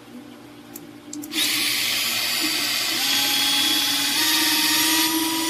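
Motor of a cordless handheld electric egg beater switched on about a second in, after a couple of clicks, then running with a loud steady whir. Its pitch steps up twice.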